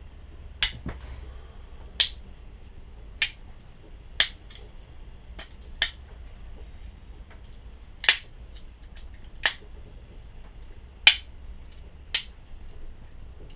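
Tools of a Victorinox SwissChamp Swiss army knife snapping into place one after another under their back springs: about eleven sharp metallic clicks, roughly one a second at uneven intervals.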